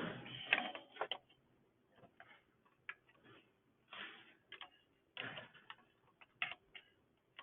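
Irregular clicks, taps and brief scraping from small metal parts and hand tools being handled during small-engine reassembly, with a louder rustle at the start.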